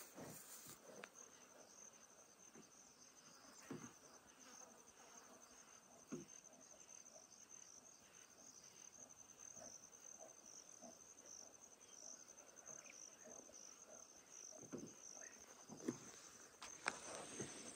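Faint, steady high-pitched insect trilling, pulsing slightly, with a few soft knocks scattered through it.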